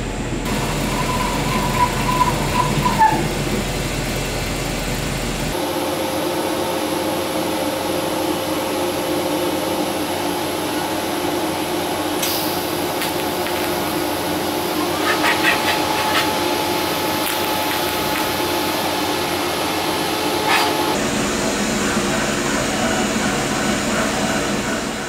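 A metal lathe running as a centre drill cuts into a spinning stainless steel cylinder, with a brief falling squeal in the first few seconds. Then a TIG welding arc with a steady hum and a short run of crackles, then the lathe running again.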